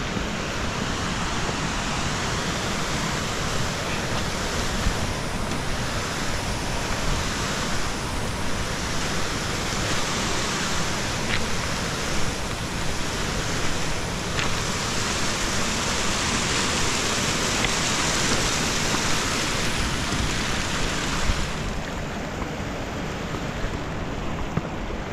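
Steady rushing noise with a few faint clicks.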